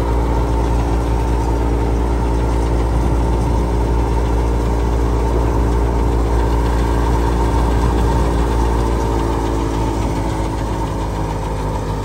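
Tractor-driven wheat thresher running steadily, engine and threshing drum together. From about nine seconds in the pitch sags and the sound eases off as the thresher is being shut down.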